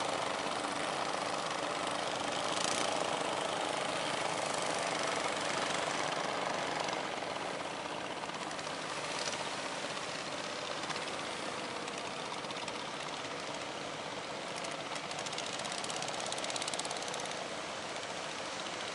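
An engine running steadily under a broad rushing noise, slightly quieter from about seven seconds in.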